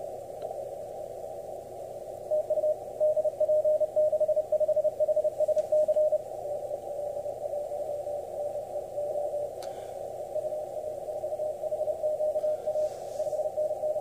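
Morse code (CW) heard through an Icom IC-7300 on the 20-metre band: a keyed tone of one steady pitch over narrow-filtered band hiss. The keying is strong from about two seconds in until about six seconds, then goes on weaker.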